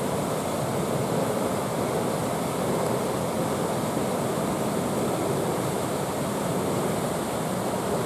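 Steady rush of fast-flowing water, a stream spilling over a small cascade among reeds, with no change in level throughout.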